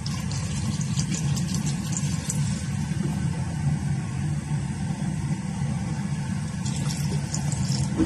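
Steady low mechanical rumble with faint light clicks above it.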